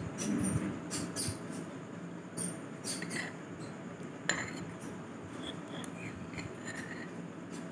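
A metal spoon clinking and scraping against a ceramic bowl while stirring chicken pieces in thick gravy: a scatter of small clicks, with a sharper clink about four seconds in.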